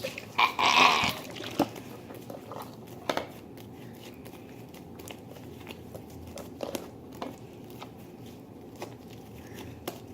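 Homemade glue slime being squeezed and handled: a short squishy rustle about half a second in, then scattered small clicks and crackles.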